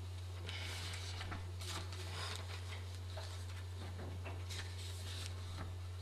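Soft rustling and light handling of paper sheets in a small room, with a steady low hum underneath.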